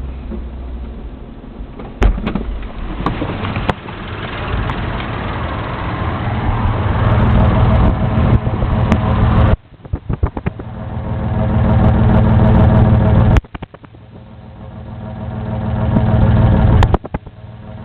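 Isuzu 6VD1 V6 engine idling roughly. The sound swells, then drops away abruptly twice before building back up, with a brief dip near the end.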